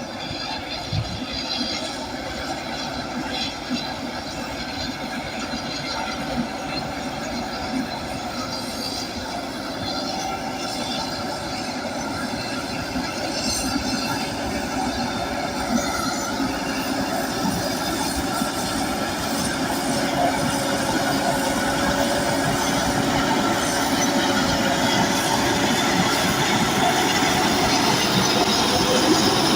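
Crawler bulldozer at work: the diesel engine runs under load while the steel tracks squeal and clank, growing gradually louder.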